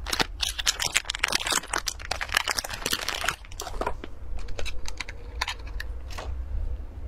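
Plastic wrapper of an individually packed durian pastry crinkling and tearing open, dense crackling for about three seconds, then a few sparse crinkles as the pastry is lifted from its clear plastic tray, and a soft bite into the pastry near the end.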